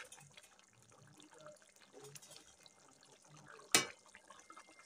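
Curry gravy simmering faintly in an aluminium kadhai, with two sharp knocks near the end about a second apart.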